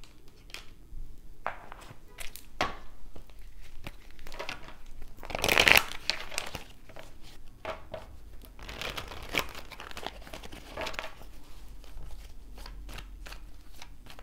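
Hands shuffling and handling a deck of tarot cards: scattered papery rustles and flicks, with one louder rasping shuffle about five and a half seconds in.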